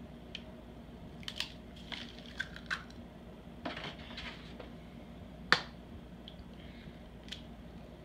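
Light kitchen handling sounds as eggs are handled and cracked over a plastic mixing bowl: scattered soft clicks and taps, with one sharper tap about five and a half seconds in, over a low steady room hum.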